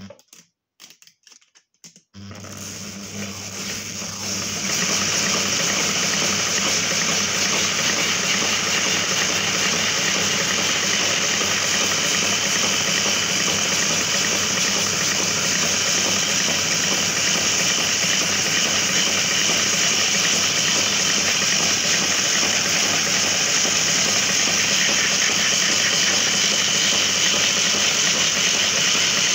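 Homemade plywood ring-winding machine starting about two seconds in. The belt-driven ring spins up over a couple of seconds, then runs steadily with a low hum and a high whir as it winds adhesive tape.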